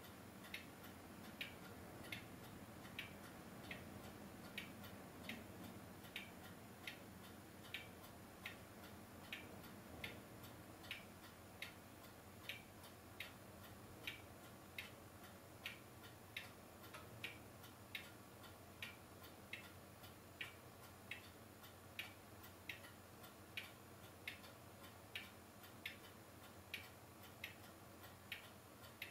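Faint, regular mechanical ticking, a little more than once a second, over low steady hiss and hum.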